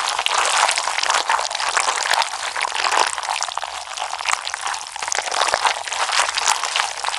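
Slime being squished and kneaded by hand: a dense, wet crackling with many small pops and clicks.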